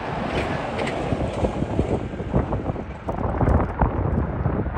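Gusty wind buffeting the microphone, an uneven low rumble that rises and falls.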